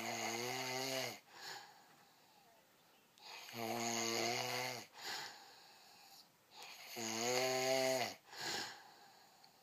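A sleeping person snoring: three loud, buzzing snores about three and a half seconds apart, each about a second long and followed by a short, fainter breath.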